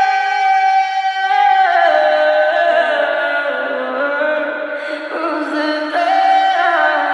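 Sped-up Russian pop song outro: wordless vocals holding long notes that slide from pitch to pitch, with no bass, fading slowly near the end.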